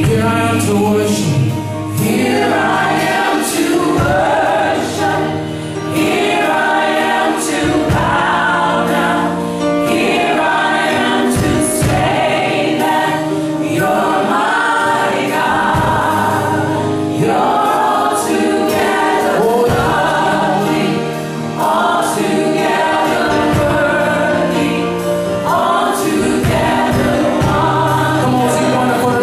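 Live church worship music: many voices singing together over a band, with regular drum hits.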